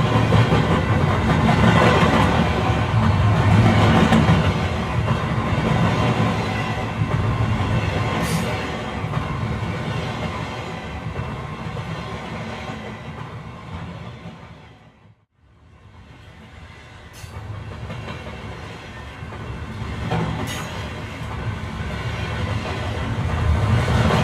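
Passenger train running on the rails, with steady running noise and a few brief sharp clicks. The sound fades out almost completely about two-thirds of the way through and then fades back in.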